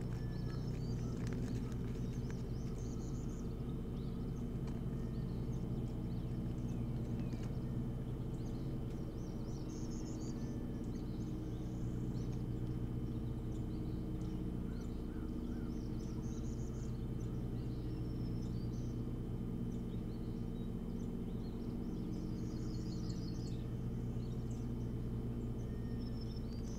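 Bird chirps and short trills at intervals over a steady low hum from the nest-camera feed.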